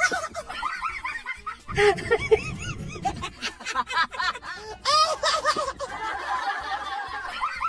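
Snickering laughter, a rapid run of short repeated laughs, over background music.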